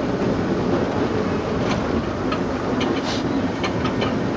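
Small amusement-park ride train running on its narrow-gauge track into a covered station: a steady rumble of wheels and running gear, with a few scattered sharp clicks in the second half.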